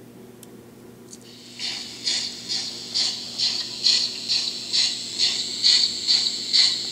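Sound decoder of a Märklin 39640 BR 64 model steam locomotive playing steam chuffs through its small speaker. The chuffs start about a second and a half in and keep a steady beat of a little over two a second.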